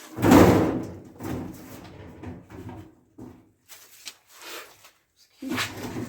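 Toolbox being handled: a loud clatter just after the start, then lighter knocks and rattles, and another clunk near the end.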